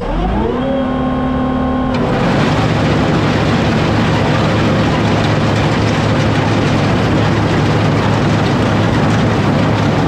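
A New Holland self-propelled windrower's hay header, heard up close at the header. Its drive spins up with a rising whine over the first half second and then runs with a steady hum. About two seconds in, a loud, even rushing noise takes over as the reel, cutterbar and conditioner cut and feed alfalfa.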